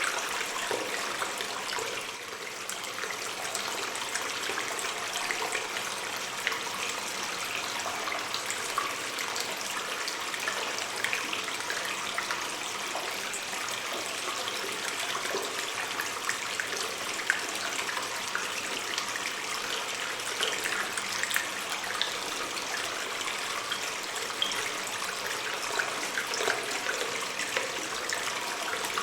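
Water stream in a cave, running and trickling steadily, with many small splashes and drips.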